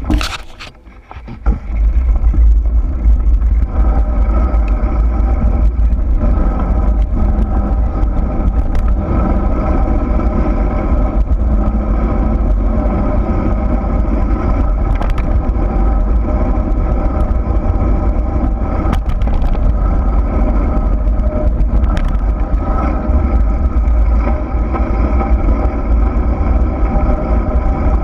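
Wind rush and rolling rumble of a steady descent down a dirt truck trail, deep and unbroken. A sharp clack comes right at the start, then the noise rises to full level within about two seconds.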